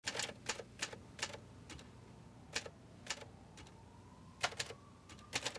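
Slow, uneven typing: single keystrokes and short runs of key clicks with pauses between them. A faint siren slowly rising in pitch comes in about halfway through.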